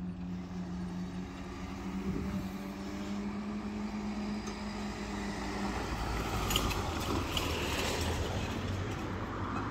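Level-crossing barrier machines humming steadily as the barriers rise, stopping about six seconds in. A car then drives across the crossing, its tyre noise swelling, with two clunks as it goes over the rails.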